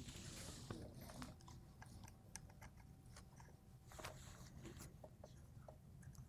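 Faint scattered clicks and light taps of small metal parts and a small key being handled on a Hardinge lathe cross slide, over a low steady room hum.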